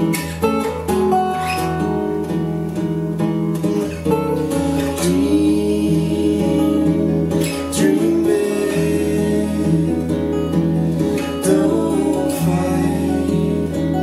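Two steel-string acoustic guitars, a Taylor and a Guild, playing a slow song together. Sung vocals come in partway through.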